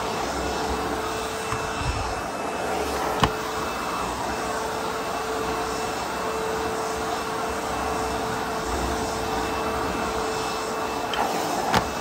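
ProTeam Super Coach backpack vacuum running steadily as its floor tool is pushed over low-pile carpet, a constant hum with one steady tone in it. Two sharp knocks come about three seconds in and near the end.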